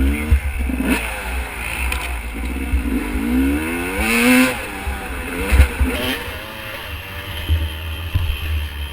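Dirt bike engine revving up and down as it is ridden off-road, its pitch climbing and dropping several times, with a steady low wind rumble on the microphone.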